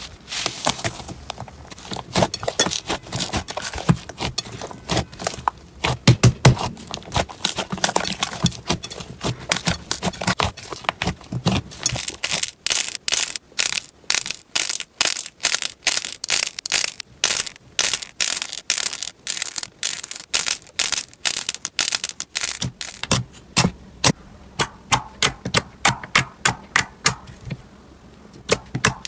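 Slime being squeezed and poked by hand, making a long run of sharp crackling pops and clicks. The clicks come densely at first, then settle into a steadier rhythm of about three or four a second.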